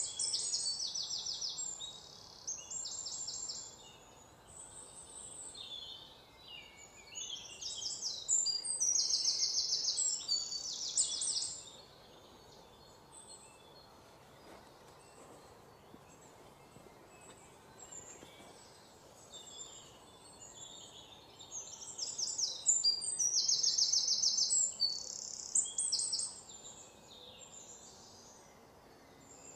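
Birds singing: high, rapid trilled phrases in three bouts, at the start, around a third of the way in, and past the two-thirds mark, over a faint steady background hiss.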